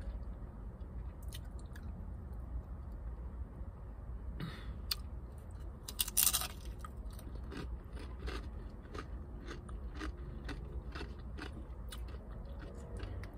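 A person biting into and chewing a crunchy chip with bean dip: one loud crunch about six seconds in, then rapid crunching chews. A low steady rumble runs underneath.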